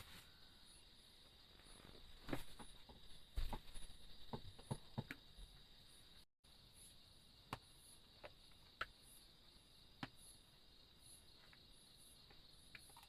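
Insects, likely crickets, chirring in a steady high drone with faint repeating chirps above it. Scattered small knocks and taps are mixed in, a cluster of them in the first half and a few single ones later.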